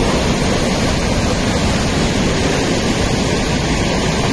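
Loud, steady rush of heavy rainwater, a dense even roar with no breaks.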